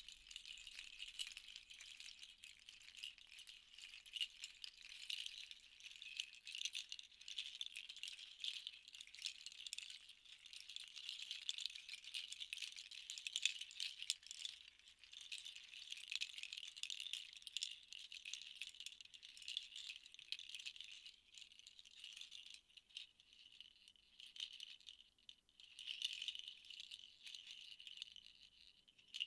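A pair of clustered hand rattles shaken in both hands, a dense rattling of many small pieces that swells and fades in waves. It thins out about two-thirds of the way through and builds again near the end.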